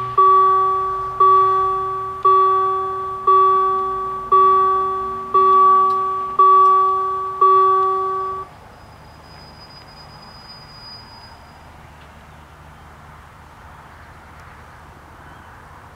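Railway level-crossing warning bells striking about once a second, each stroke ringing and fading, while the barriers lower. The ringing stops about eight and a half seconds in, once the barriers are down, leaving quiet background.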